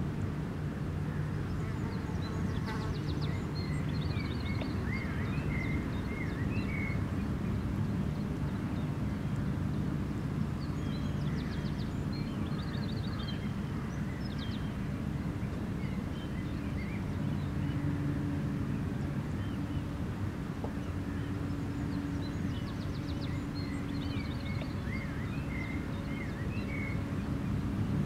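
Outdoor ambience of a steady low rumble with a faint humming drone, which swells for a few seconds around the middle. Over it a small bird calls in short chirps and quick high trills, in three bouts about ten seconds apart.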